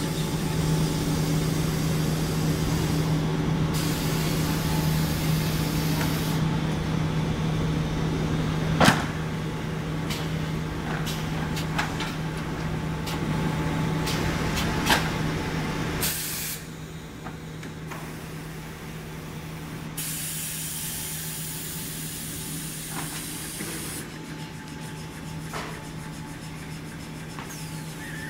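Maxi jumbo roll tissue rewinding machine running: a steady machine hum with stretches of compressed-air hiss that start and stop, and two sharp knocks, one about 9 seconds in and one about 15 seconds in. The whole sound gets quieter a little past halfway.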